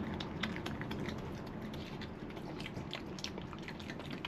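European badger eating food off a tiled floor: irregular crunching and chewing, many small quick clicks.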